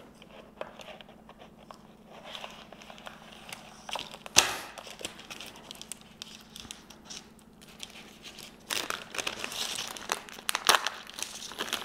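Foil pouch being cut open with scissors, then its stiff foil crinkling as it is pulled open and handled. There is one sharp crackle about four seconds in and a stretch of louder crinkling near the end.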